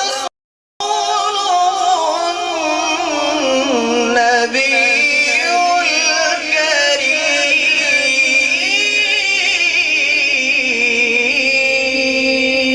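A man's voice chanting a long, ornamented melodic line in Quran-recitation style, with held tones lingering under it as echo. The sound drops out completely for half a second just after the start, then runs on without a break.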